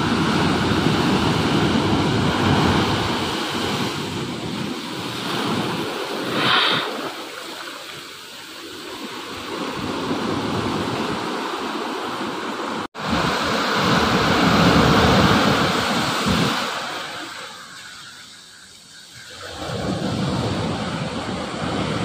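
Ocean surf breaking and washing up a sandy beach among rocks, a steady rush that swells and fades as each set of waves comes in and draws back. The sound cuts out for an instant about halfway through.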